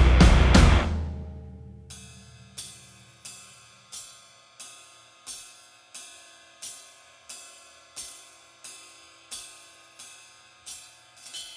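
Background music: a loud drum-kit passage fades out in the first second, then a single ringing, cymbal- or bell-like struck note repeats evenly, about one and a half times a second.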